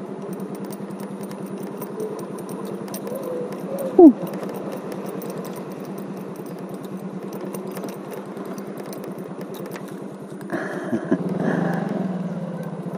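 Small automatic scooter engine running steadily while riding, growing louder for a couple of seconds near the end. About four seconds in, a brief loud sound slides down in pitch.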